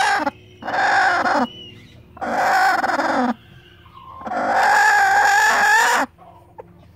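A broody hen giving loud, drawn-out screeching calls, four in a row with the last and longest ending about a second before the close. These are her protest at being touched while she sits on the nest.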